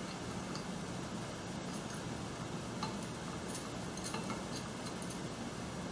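A few faint, sharp metal clicks and taps, mostly in the middle, as the parts of a direct shear box are fitted together and a locking screw is turned to hold the upper frame on the lower frame. A steady low room hum runs underneath.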